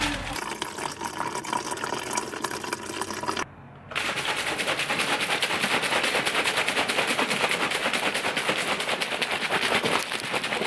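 Plastic shaker bottle shaken hard to mix a drink, liquid sloshing and rattling in fast even strokes, with a short pause about three and a half seconds in.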